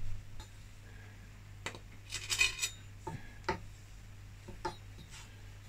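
Light metallic clinks and taps of a fluted metal scone cutter and a palette knife being handled on a silicone baking mat. There is a short rattling clatter about two seconds in, followed by a few single taps.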